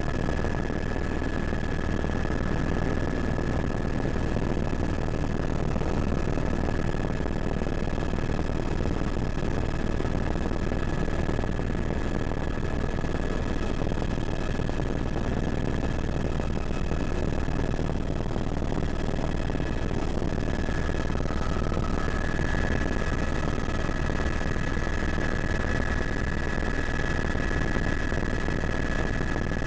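Helicopter noise from inside the cabin: a steady low drone with a constant high whine over it, which fades briefly about two-thirds of the way through.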